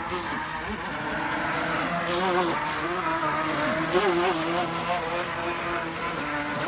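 Twin 380 electric motors of a toy RC speedboat whining at speed, the pitch wobbling up and down as the boat turns.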